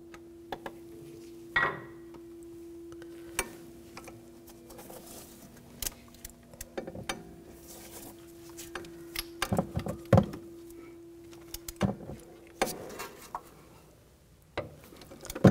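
Hand ratchet on a long extension snugging the inner CV axle flange bolts: scattered metallic clicks and clinks of the ratchet and tool against the flange, bunched together about ten seconds in. A steady low hum runs underneath and stops near the end.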